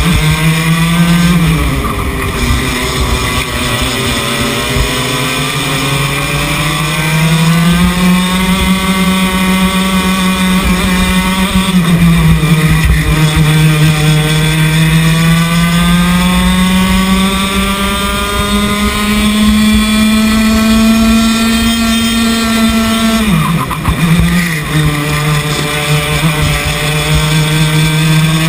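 Two-stroke racing kart engine heard from the driver's seat at race pace, its pitch climbing on the straights and dropping into the corners, most sharply near the end, over a steady low rumble.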